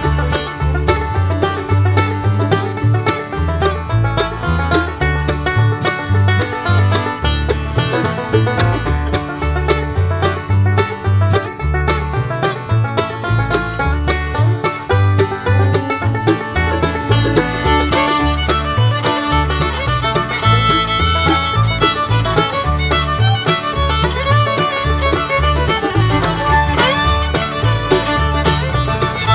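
Background music: an upbeat bluegrass-style tune with banjo, fiddle and guitar over a steady beat.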